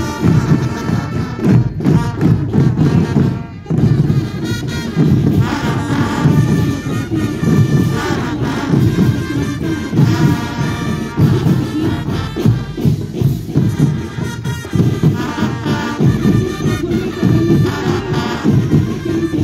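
Marching band of brass and drums playing a march: a brass melody over steady drum beats.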